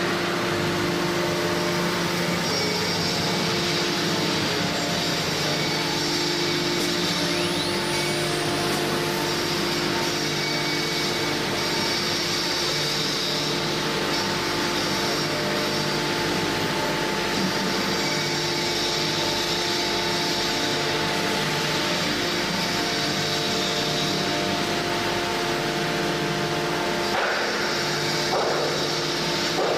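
An automatic-tool-change CNC router running: a steady machine whine of several constant tones over a continuous hiss, from the spindle and its suction system.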